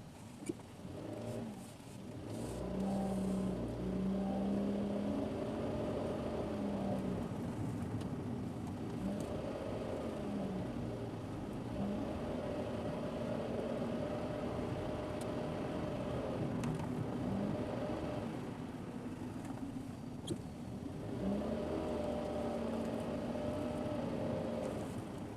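Car engine running under way with tyre and road noise, the engine note rising and falling as the speed changes, heard as a dashcam picks it up. A few faint clicks stand out.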